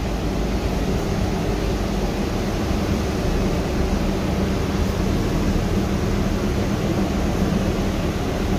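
Steady cabin noise inside a Gillig trolley-replica hybrid bus: a low hum from the drivetrain with an even hiss over it.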